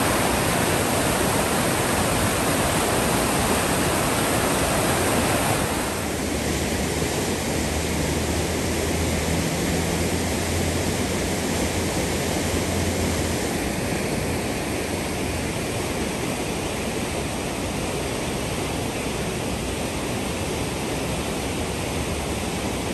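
Steady rushing noise, like wind or moving water, which eases slightly about six seconds in, with a low hum under it for several seconds after that.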